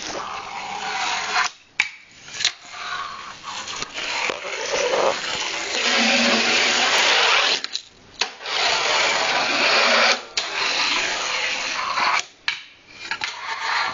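Fingerboard wheels rolling and grinding along a bench in long stretches, broken several times by sharp clacks as the board pops and lands.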